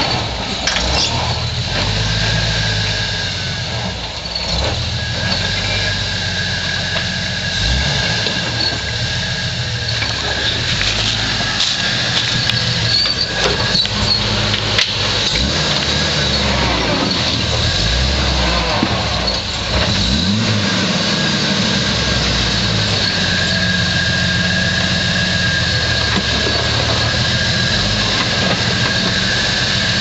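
Jeep Wrangler YJ rock crawler's engine running and revving up and down as the stuck Jeep works against a rock ledge, with a steady high tone running over it.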